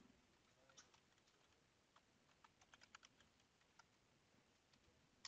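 Faint computer keyboard typing: a scattering of soft keystrokes, a quick run of them about halfway through.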